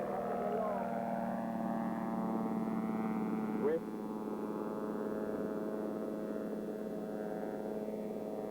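Light aircraft piston engine running at a steady speed, a constant droning hum. A short high chirp cuts in about three and a half seconds in.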